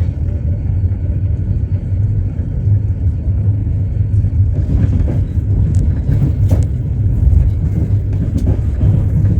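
Passenger train running on rails, heard from inside the carriage: a steady low rumble with a few sharp clicks of the wheels over the track in the second half.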